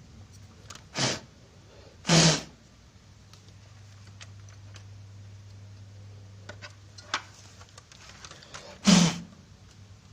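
Three short puffs of breath, blowing dust off a small cooling fan that has just been cleaned: two close together near the start, one near the end.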